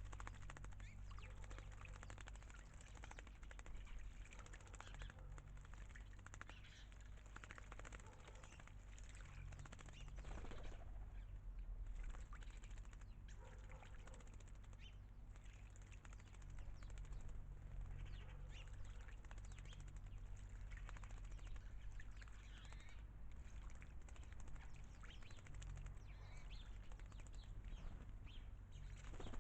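Small garden birds bathing in a birdbath: irregular fluttering and splashing, with scattered bird calls over a faint steady low rumble.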